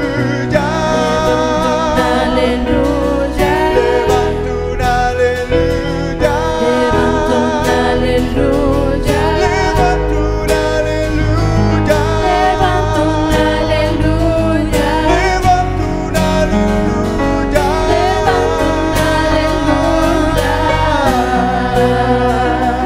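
Live Christian worship music: several voices singing together over acoustic guitar, bass guitar and keyboard. Near the end the voices stop and the instruments carry on.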